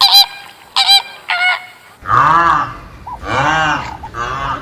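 Geese honking in a series of short calls. About halfway through, the recording changes to lower honks that rise and fall, over a steady background rumble.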